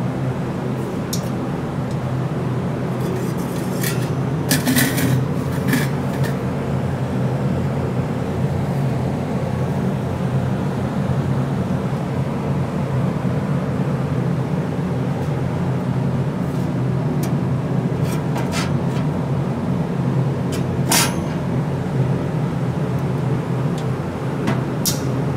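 Steady low drone of a pellet fire burning in a SilverFire Scout stove under a sheet-metal box oven, with a few sharp metallic clicks. Near the end comes a metal clack as the oven door is opened.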